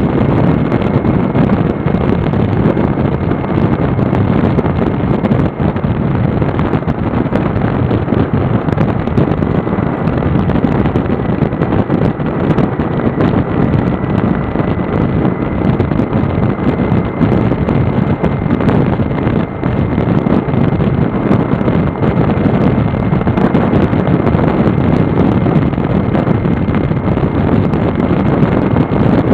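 Wind buffeting the microphone at highway speed over the steady running of a motorcycle engine and tyre noise, with no change in pace.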